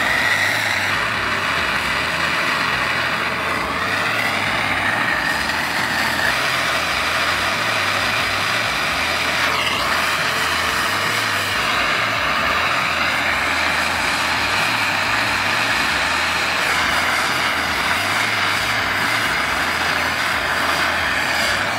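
Handheld gas torch burning steadily with a continuous hiss, its flame held on an aluminium tank to heat it for brazing.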